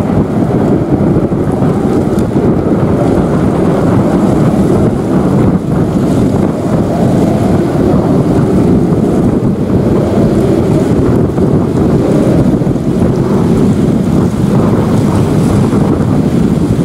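Loud, steady jet noise from an F-15 Eagle's twin turbofan engines as the fighter climbs away.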